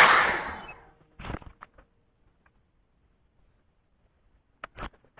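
Camera handling noise: fabric rubbing over the microphone as the camera is moved, a loud rush that fades out within the first second. Then it is nearly silent, with a few faint clicks and knocks near the end.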